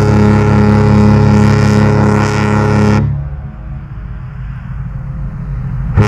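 Carnival Jubilee's cruise-ship horn (typhon) sounding a long, deep, steady blast that cuts off suddenly about three seconds in, leaving a low rumble, before the next blast starts at the very end.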